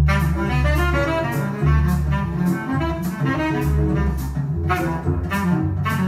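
Jazz playing from a vinyl record on a turntable through loudspeakers: a strong bass line under a melody, with steady percussion strokes.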